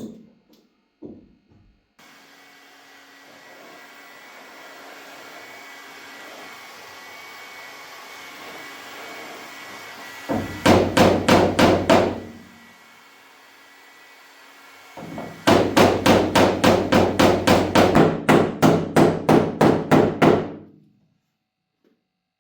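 Hammer blows in quick, even succession, about five a second: a short run of under two seconds, then after a pause a longer run of about five seconds, over a steady hum. The blows bend a car's headlight or bumper fitting to adjust its alignment.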